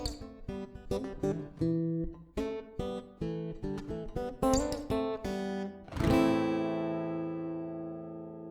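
Acoustic guitar music: plucked notes and strummed chords, ending on one chord about six seconds in that rings out and fades away.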